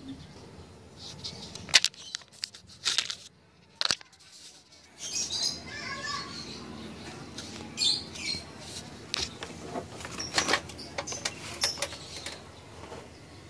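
Irregular sharp clicks and knocks of an audio processor's circuit board and metal case being handled, with a short run of high chirps about five seconds in.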